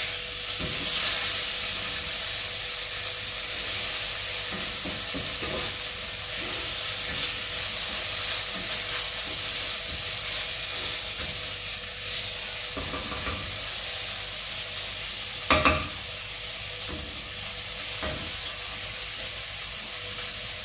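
Tofu sizzling as it fries in oil in a pan, with small scrapes and taps of a utensil stirring it and one louder clank against the pan about fifteen seconds in.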